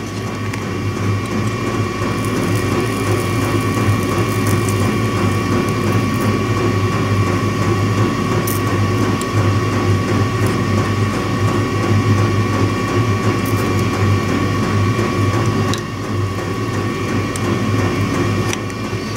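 A machine running steadily, with a low hum and a steady higher tone over a faint ratcheting flutter.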